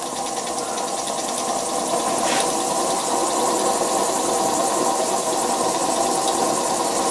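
Steady hiss of the gas burner heating the boiler, with a fast, light mechanical clatter from the small vertical model steam engine running on low-pressure live steam.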